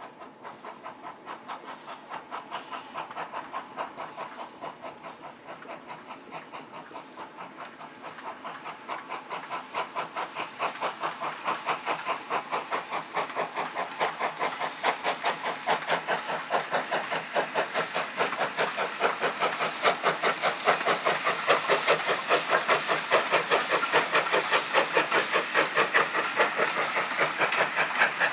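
LBSCR E4 class 0-6-2 tank locomotive working hard up a gradient with a train, its steam exhaust beating in an even rhythm of about three chuffs a second. The chuffs grow steadily louder as the engine draws near and passes.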